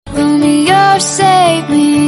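Song ringtone: a sung melody over soft backing music, starting straight after a brief break in the sound.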